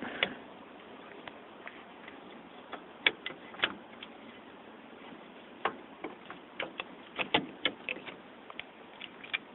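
Scattered light clicks and knocks of metal and plastic parts as the upper steering column assembly of a Ford truck is worked by hand to line up its gear and steering-wheel lock rod with the column. They come irregularly, a few around three seconds in and a denser run a little after the middle.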